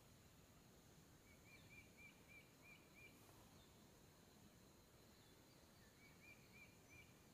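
Near silence with faint outdoor background; a bird calls faintly in two short runs of quick repeated high notes, about six notes a little over a second in and about four more near the end.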